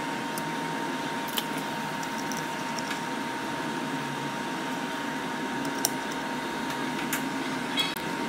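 Small, sharp clicks and taps of a precision screwdriver and fingers on the iPhone's metal internal brackets and parts, a few spread out with a quick run of ticks near the end, over a steady room hiss and a faint steady tone.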